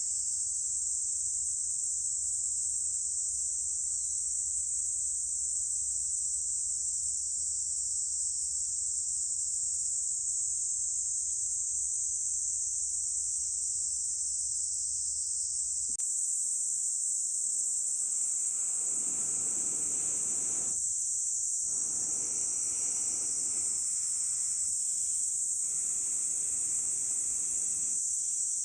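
A steady, high-pitched shrilling of a summer insect chorus. About two-thirds of the way in, a lower rushing, breathy noise joins it, broken by a few short pauses.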